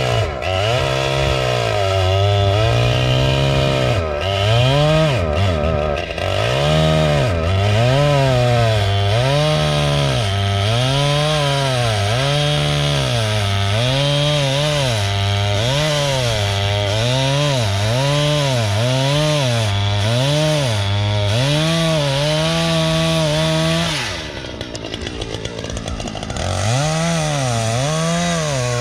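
Chainsaw cutting firewood, its engine note rising and falling in a steady rhythm about every second and a half as the saw works through the wood. Near the end the pitch briefly drops, then it revs back up.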